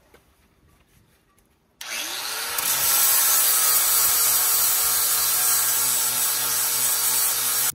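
Electric grinder with a sanding disc starting up about two seconds in, its motor pitch rising quickly and then holding steady as the disc grinds the fibreglass hull to bevel out blisters. It cuts off suddenly at the end.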